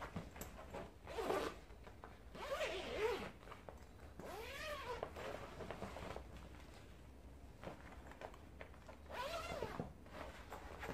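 Zipper on a Northpeak trolley bag being pulled in several separate strokes, each one rising then falling in pitch.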